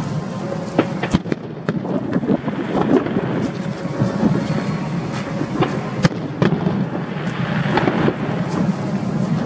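Aerial fireworks display: a rapid, irregular barrage of bangs and crackling over a steady low rumble, with the sharpest reports about a second in and at about six seconds.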